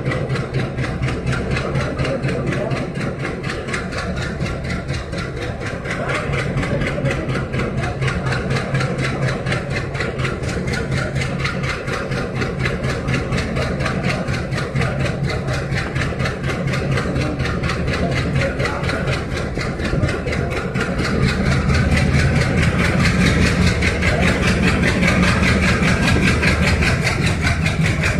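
Diesel train engine running steadily under power, getting louder in two steps, about six seconds in and again about two-thirds of the way through, as it works harder.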